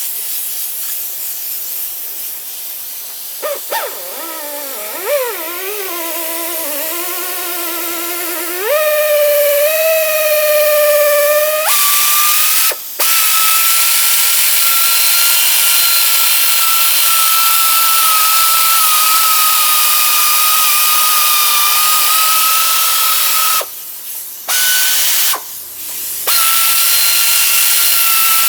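Electric power tool motor whining over a steady hiss. Its pitch wavers as it speeds up, steps higher twice, then holds steady and loud. It cuts off briefly twice near the end.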